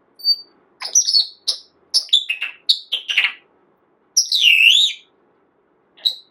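A parrot chirping and whistling: a quick run of short, high chirps, then one longer warbling whistle that dips and rises again, and a last short chirp near the end.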